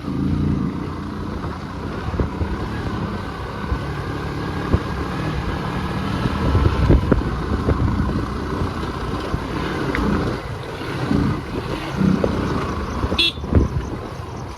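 A vehicle driving over a rough, unpaved off-road track: a steady engine rumble with frequent knocks and rattles from the bumps.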